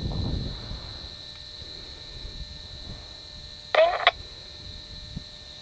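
Steady high chirring of insects such as crickets runs in the background. After a low rumble fades in the first second, a brief loud squeak sounds about four seconds in and ends in a click.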